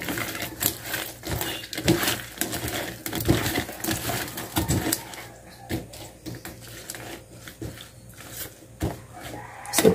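A metal utensil scraping and tapping against a dish as butter is spread: quick clicks and scrapes in the first half, coming more sparsely in the second half.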